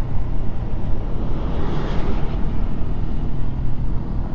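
Honda PCX 160 single-cylinder scooter engine running steadily while riding, under heavy wind rumble on the microphone. A brief rush of noise swells and fades about two seconds in.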